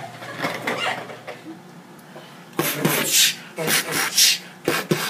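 Beatboxed beat: loud hissing, cymbal-like mouth sounds about two a second with a few sharp clicks, starting about two and a half seconds in after a moment of talk.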